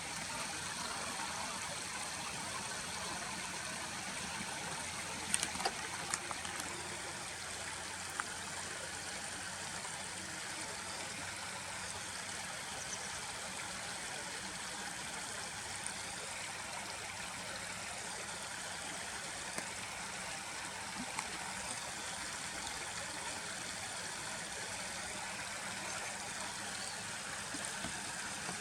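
Steady rush of a flowing stream, with a few brief clicks about five to eight seconds in.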